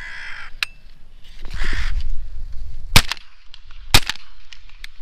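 Crows cawing twice, then two shots from a Browning A5 12-gauge semi-automatic shotgun about a second apart, the shots the loudest sounds.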